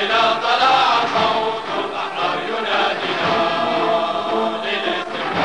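A choir singing with musical backing: many voices singing together in sustained lines.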